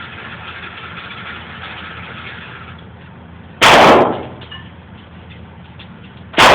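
Taurus Millennium Pro pistol firing .45 ACP: two sharp shots about three seconds apart, the second right at the end, each with a short ringing tail.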